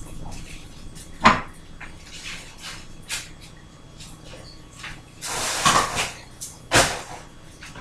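Kitchen handling sounds: a sharp knock about a second in, a short rustle just after five seconds, and another sharp knock near the end.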